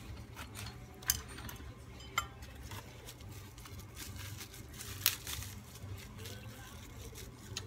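A few light clicks and clinks as small parts, rubber bulb holders and LED bulbs, are handled and pushed into a motorcycle speedometer or tachometer housing on a workbench. The sharpest click comes about five seconds in, over a steady low hum.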